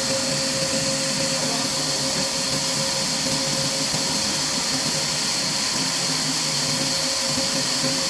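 Steady machine noise: an unbroken hiss, strongest in the high end, with a faint steady hum tone under it.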